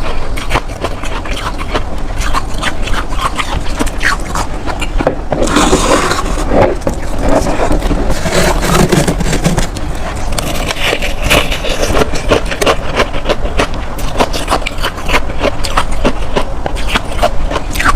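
Freezer frost being scraped and crunched: a dense, irregular run of crackly crunches and scrapes.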